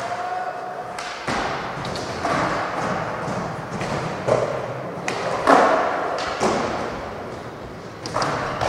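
Skateboard wheels rolling on concrete and wooden ramps, with several sharp board clacks and thuds ringing out in a large hall.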